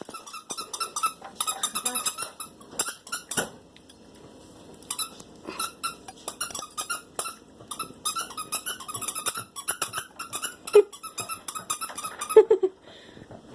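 A dog chewing a squeaky plush toy, setting off its squeaker again and again in quick runs of squeaks with short gaps between them.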